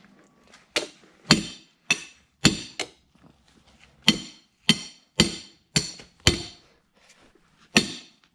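Hammer blows on metal: about eleven sharp strikes at an uneven pace with two short pauses, each one ringing briefly.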